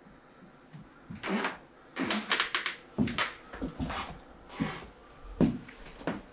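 Close, soft human breath and mouth sounds: a string of quiet breaths, sniffs and small lip clicks, a second or less apart.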